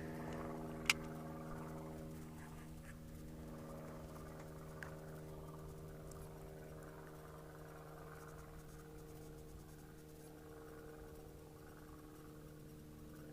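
A steady mechanical hum of constant pitch, with one sharp click about a second in.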